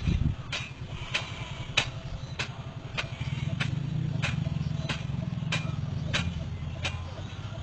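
An engine running steadily, with a sharp click repeating about every 0.6 seconds.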